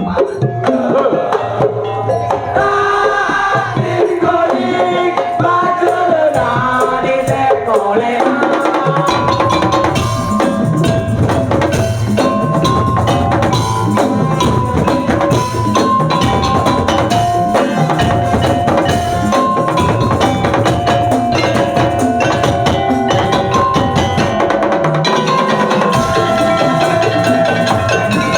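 Madurese tongtong (daul) ensemble music: wooden percussion and drums beat a fast, dense rhythm under a melody. About nine seconds in the beat grows heavier and fuller, and the melody settles into repeated notes.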